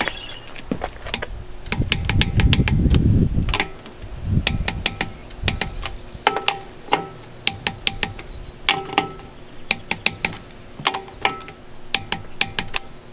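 Click-type torque wrench ratcheting and clicking on a trailer's lug nuts, a quick string of sharp metallic clicks with a short ring. It is set to 45 foot-pounds, the first stage of torquing the nuts on 15-inch aluminum wheels. A low rumble runs for about two seconds, starting a second and a half in.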